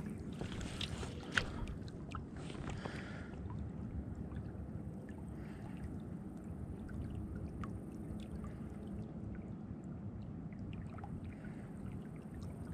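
Steady low rush of river current swirling around a wading angler's legs, with a few faint clicks from handling the fly rod and line, one a little louder about a second and a half in.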